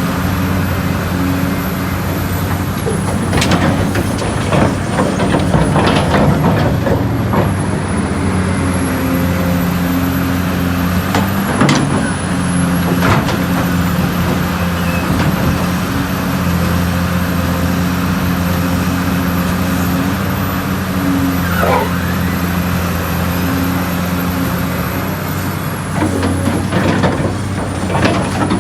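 Large Caterpillar mining excavator's diesel engine running steadily under load, with scattered clatter and knocks of rock and dirt as overburden is dug and loaded into a dump truck, the sharpest knock about 12 seconds in.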